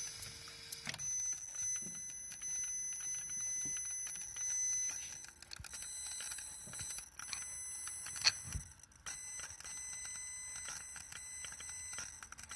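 Electronic throttle body of an Audi S6 C5 making an abnormal noise: a steady high-pitched whine with irregular clicking and ticking, and one louder knock about 8 seconds in.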